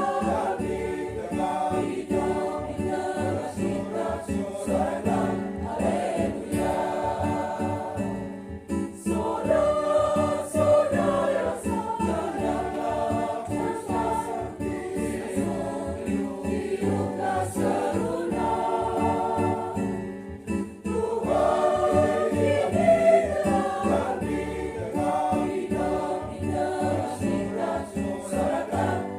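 Church choir singing a hymn in several voice parts, with short breaks between phrases about eight and twenty seconds in.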